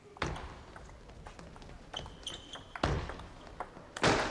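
Table tennis rally: a celluloid ball clicking off bats and the table, with three louder knocks or thuds among the quicker taps.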